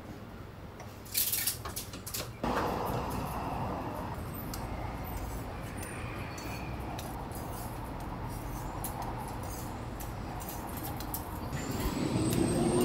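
Metal spatula clicking and scraping on a flat dorayaki griddle as the pancakes are flipped, over a steady hiss that starts abruptly a couple of seconds in. A short loud hiss comes about a second in, and a rising whine builds near the end.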